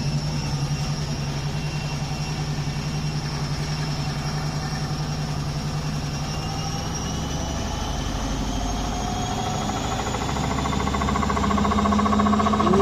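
Zanussi washing machine running with its shock absorbers removed: a steady low hum and a rapid shaking rattle from the unbraced drum, with a motor whine that rises in pitch from about halfway in as the drum speeds up, getting louder toward the end.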